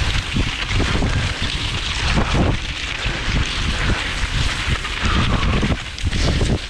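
Wind buffeting an action camera's microphone on a cross-country skier racing in skate technique, with a steady low rumble and irregular scraping knocks from skis and poles on snow.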